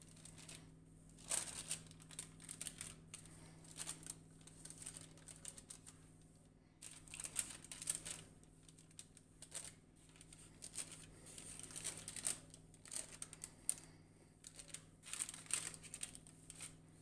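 Spatula spreading génoise sponge batter across a parchment-lined baking tray: irregular soft scrapes and crinkling of the baking paper.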